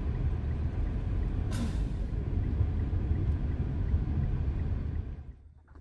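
Car driving, heard from inside the cabin: a steady low rumble of engine and road noise, with a short hiss about one and a half seconds in. The rumble drops away about five seconds in.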